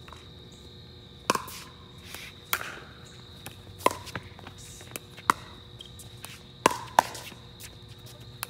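A pickleball rally: about six sharp pops of pickleball paddles striking the plastic ball, roughly a second and a half apart, with two in quick succession near the end, and lighter ticks of the ball bouncing on the hard court between hits.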